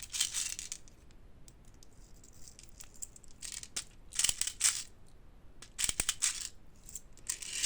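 6 mm plastic airsoft BBs being loaded into a gas pistol's magazine: small clicks and rattles in several short bursts.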